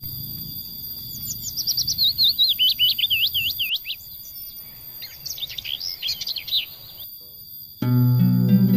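A songbird singing rapid runs of sweeping whistled notes, two bursts a second or so apart, over a steady high-pitched tone. Plucked-string music starts near the end.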